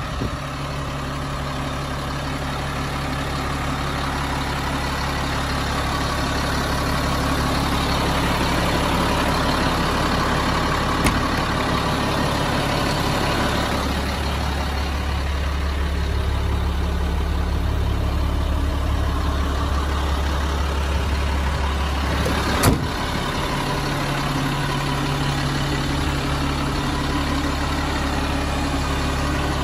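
The truck's Cat 3126 turbo-diesel engine idling steadily, its low hum louder for a stretch in the middle. Two sharp knocks sound over it, one about eleven seconds in and a louder one about twenty-three seconds in.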